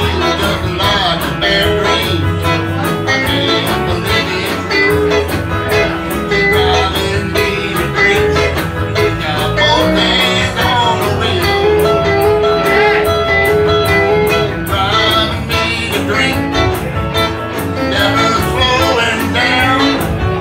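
Live country band playing a song: electric guitars over a steady beat, with a woman singing.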